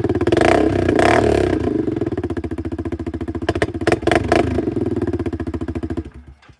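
Yamaha Grizzly 700 ATV's single-cylinder engine running loud with its stock exhaust tip pulled off, blipped briefly a few times, then shut off about six seconds in.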